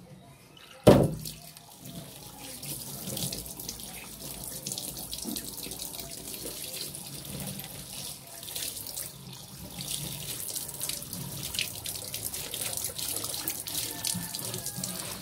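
Kitchen tap running into a stainless steel sink while a soaped plastic cutting board is rinsed and scrubbed under it, with one sharp knock about a second in.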